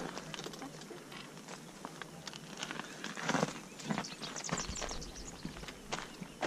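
Footsteps scuffing and crunching on gritty granite, irregular short scrapes and clicks, with a few louder steps a little past the middle.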